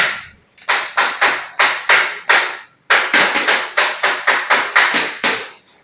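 Rapid series of sharp strikes on metal in a sheet-metal workshop, about three to four a second. There are six strikes, then a short pause just before three seconds in, then a faster run of about a dozen.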